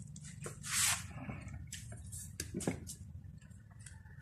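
Handling noises from an electric food chopper's plastic motor lid and glass bowl being picked up and turned over: scattered clicks, knocks and rustles, the loudest about a second in, over a low steady hum. The motor is not running.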